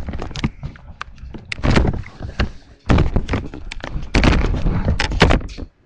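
Many loud thumps and knocks mixed with rustling, coming in several busy stretches with short pauses between them.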